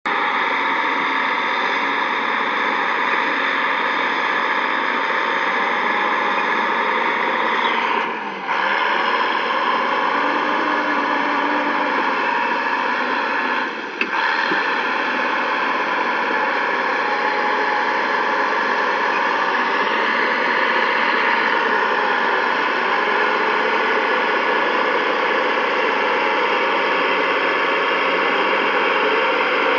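International Harvester Dresser TD15C crawler dozer running while it pushes soil with its blade: a steady engine and machinery noise. The sound drops out briefly twice, about 8 and 14 seconds in.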